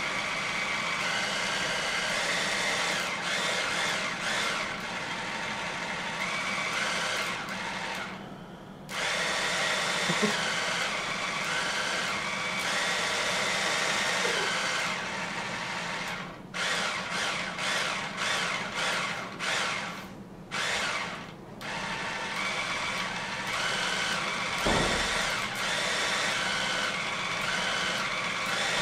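Electric hand mixer's motor whirring, its pitch stepping up and down as it is switched between its four speeds to play a tune. There is a short pause about eight seconds in, and a run of quick on-off bursts a little past halfway.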